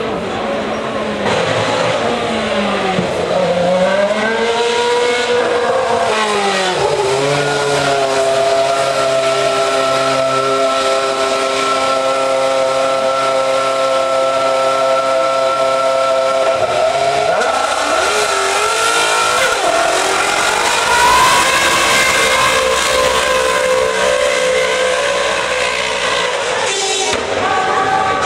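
Formula One car's 2.4-litre Mercedes V8 revved up and down several times on the start line. It is then held at one steady high engine speed for about ten seconds, revs climb again, and the car pulls away near the end.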